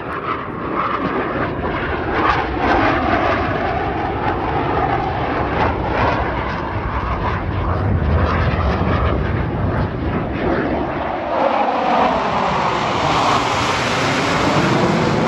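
Loud, steady jet engine noise from Blue Angels F/A-18 Super Hornets flying low past. About eleven seconds in, a fresh pass builds, with a sweeping, shifting pitch as the jets close in.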